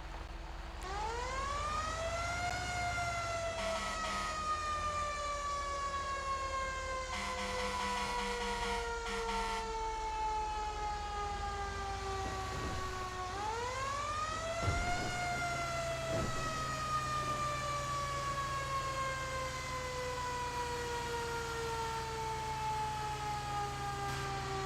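Vehicle-mounted electronic siren in wail mode. The tone climbs over about two seconds, then falls slowly over about ten, and the cycle runs twice. A steady low hum joins about halfway through.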